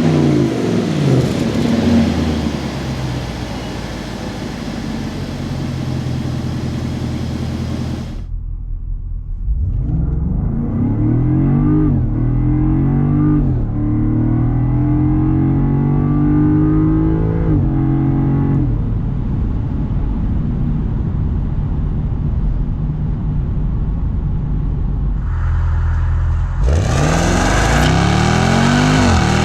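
2025 Land Rover Defender 110's 5.0-litre supercharged V8 accelerating: the engine note climbs in pitch and drops back at each upshift, three times in a row, then settles to a steadier drone. It starts loud and bright, turns duller for most of the middle, and near the end comes back loud with another climbing rev.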